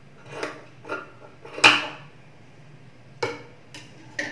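Tailor's scissors snipping off excess blouse cloth and clicking against the table: a handful of short, sharp metallic snips and clicks, the loudest about one and a half seconds in.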